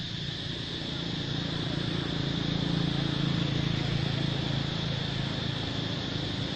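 A low engine hum that grows louder toward the middle, over a steady high-pitched insect drone.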